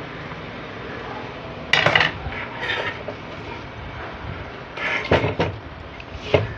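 Metal clinks and clatter as the screwdriver, screws and the circuit board with its finned aluminium heat sink are handled and set down on the bench, in about four short bursts.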